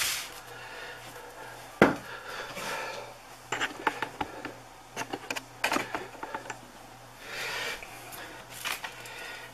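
Handling noise from a plastic-sleeved instruction binder and kit being moved on a wooden table. There is a sharp knock a little under two seconds in, then scattered clicks, taps and short rustles.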